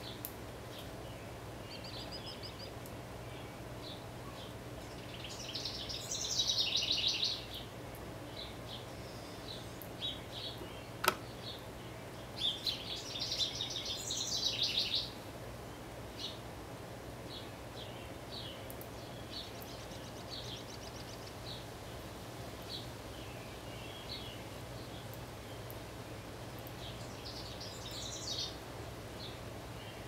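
Wild songbirds singing: two bursts of rapid trilled song, about six seconds in and again from about twelve to fifteen seconds, with short chirps scattered between, over a low steady hum. A single sharp click about eleven seconds in.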